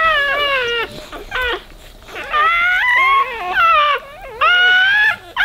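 Newborn Weimaraner puppies crying: about five short, high, wavering squeals in a row, with short pauses between them.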